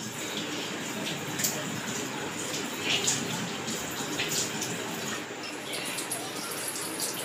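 Tap water running into a bathroom washbasin and splashing as a child rinses his hands and toothbrush under the stream, with a few brief louder splashes.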